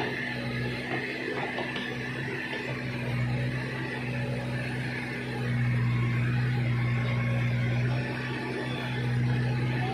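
Diesel engine of a backhoe loader running steadily, getting louder for about two seconds past the middle and again near the end as it works.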